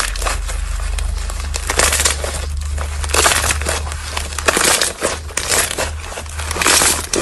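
Slime being squeezed and worked by hand, giving irregular crinkly crackling in uneven bursts, over a steady low hum.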